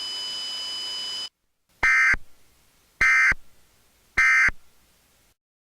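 Emergency Alert System end-of-message data bursts: three short, identical electronic warbling squawks about a second apart, marking the end of the alert. They come after a steady hiss with a faint high whine that cuts off suddenly.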